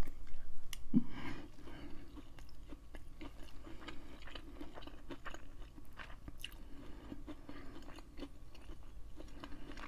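Close-miked chewing of a first mouthful of hibachi chicken, steak and sauced rice, with many small, irregular wet mouth clicks.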